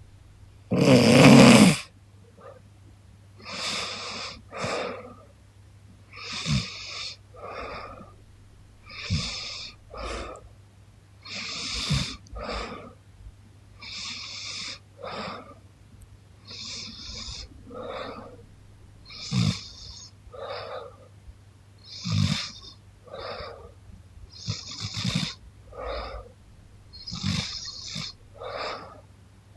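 A sleeping young woman snoring: one loud snore about a second in, then slow, regular breathing, each breath in and out about two and a half seconds apart, several starting with a short low snort.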